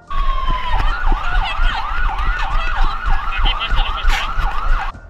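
A siren in fast yelp mode: a short falling tone, then a rapid rising-and-falling wail about three or four times a second, cutting off suddenly near the end. Scattered knocks sound beneath it.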